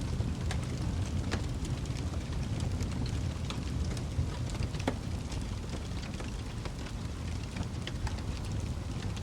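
Wood fire crackling in a fireplace: a steady low rumble of flames with irregular sharp pops and snaps scattered throughout.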